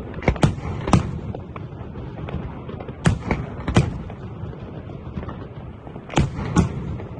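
Fireworks display: aerial shells bursting with sharp bangs in clusters of two or three about every three seconds, over a continuous low rumble and crackle.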